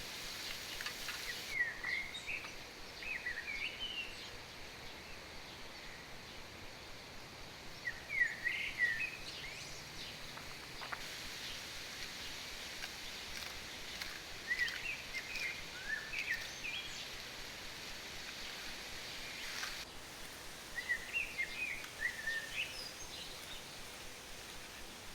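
A songbird singing short, quick phrases of chirped notes, repeated four times about every six seconds, over a steady outdoor hiss.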